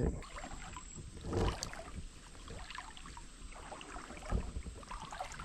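Faint creek water movement, with two soft bumps, about a second and a half in and again past four seconds.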